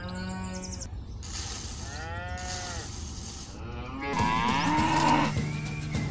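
Cattle mooing: about three long calls, each rising and then falling in pitch.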